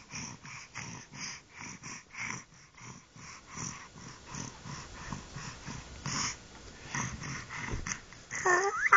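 Baby making rhythmic breathy panting sounds, about two to three a second, ending in a short rising squeal of voice near the end.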